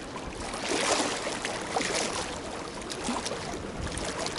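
Lake water lapping and splashing in small irregular slaps against something close to the microphone.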